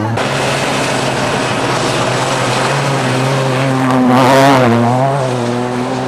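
Rally-raid car engine running hard at high revs, with a steady drone that swells loudest about four seconds in as the car passes close by.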